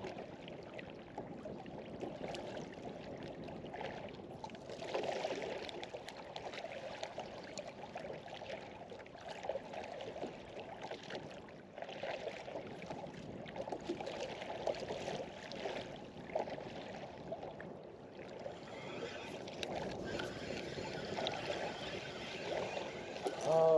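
Water lapping and splashing against the hull of a small skiff, an irregular wash that swells and fades every second or two.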